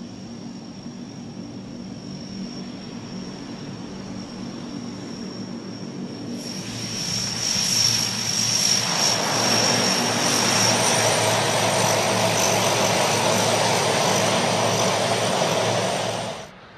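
The four Allison T56 turboprop engines of a Lockheed C-130 Hercules running as the aircraft rolls past on the runway, with a steady high turbine whine over the propeller noise. The sound grows much louder about six to eight seconds in as the aircraft comes close, holds, then cuts off suddenly near the end.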